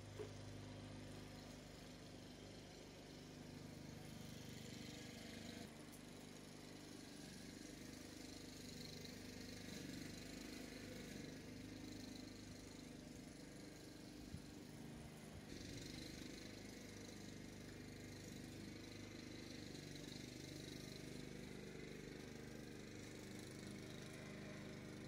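Faint steady low hum, with a soft knock at the start and another around the middle.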